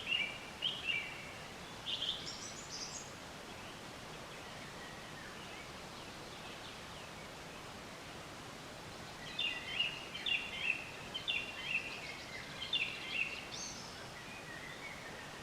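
A forest songbird singing phrases of quick, short chirps in the first few seconds and again in a longer run past the middle, over a steady hiss of forest ambience.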